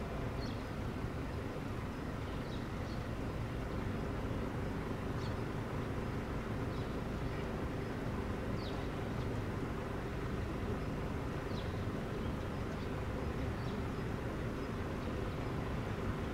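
381 series electric train approaching slowly from a distance: a steady low rumble with a faint hum. Birds chirp briefly now and then over it.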